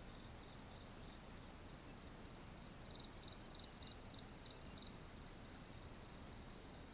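Faint, steady, high-pitched insect drone, cricket-like. About three seconds in, a run of about seven short high chirps, roughly three a second, rises over it for about two seconds.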